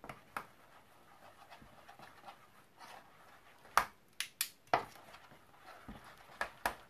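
A utensil scooping and stirring Korean chili paste into kimchi sauce in a plastic tub. There is soft scraping first, then several sharp clicks and knocks in the second half, the loudest about four seconds in.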